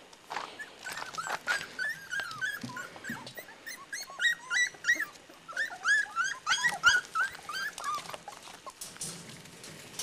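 A litter of four-week-old Border Collie puppies whining and yelping, many short high calls overlapping, with scattered clicks. The calls thin out near the end.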